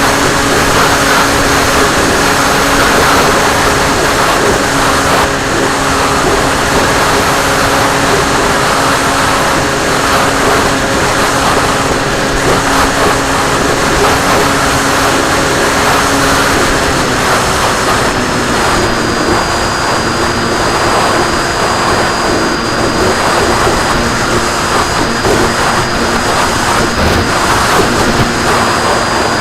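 Wind rush and the steady propeller drone of an RC plane in flight. The drone steps down slightly in pitch about halfway through, and a thin high whine joins soon after.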